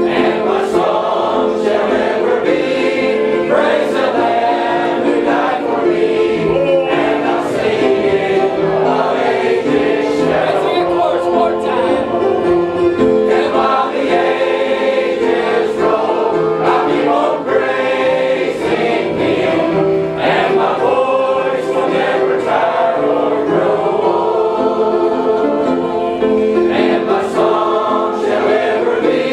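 A church congregation singing a gospel hymn together.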